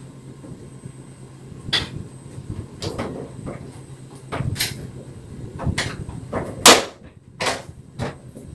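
Irregular knocks and clicks of a screwdriver and hands working on the metal underside and fittings of a Modena PX 6011 V slim cooker hood while it is being mounted, getting busier in the second half, the loudest knock about two thirds through.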